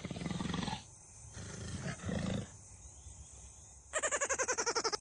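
Lion roaring twice, two short, deep calls a second or so apart. Near the end comes a different, fast pulsing sound, about a dozen pulses a second for about a second, which cuts off suddenly.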